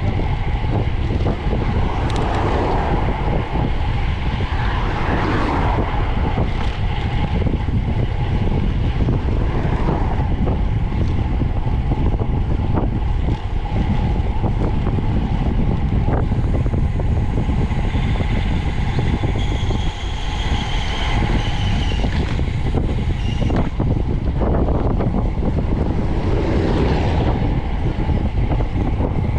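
Steady wind buffeting on the microphone of a camera riding along on a moving bicycle, mixed with road rumble. A faint high tone comes and goes about two-thirds of the way through.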